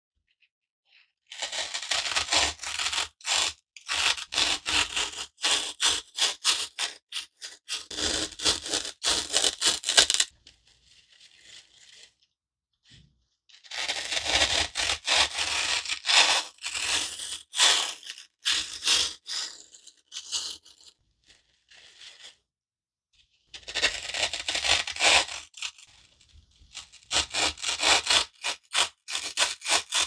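A garden foam block being cut: a dry, staticky rasp made of rapid crackling strokes, in three long spells with brief pauses and softer scraping between them.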